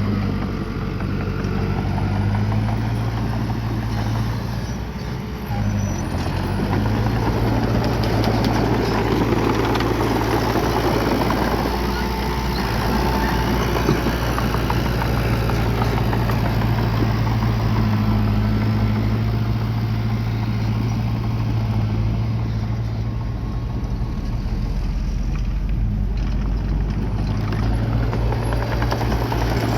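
Bulldozer's diesel engine running steadily, dipping briefly about five seconds in.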